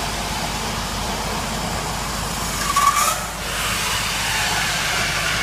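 Steady rush of water flowing through a BERMAD control valve and its test-bench pipework. About three seconds in there is a brief rising squeak and a sharp click, and the rushing changes as the valve is shut with its manual operator and the flow is diverted to the relief line.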